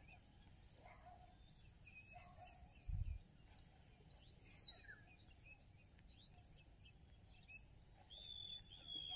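Faint outdoor ambience of birds chirping and whistling in short calls throughout, over a steady high-pitched whine. A single short low thump about three seconds in.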